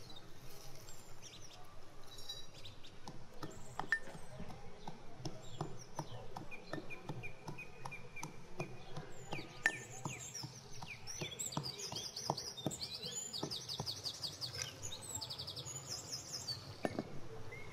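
Brass mortar and pestle pounding walnuts, a run of repeated sharp knocks, with birds chirping and trilling in the background.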